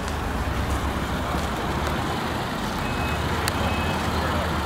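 A 2015 Subaru WRX's turbocharged 2.0-litre flat-four engine and exhaust running steadily at low revs, with a constant low hum.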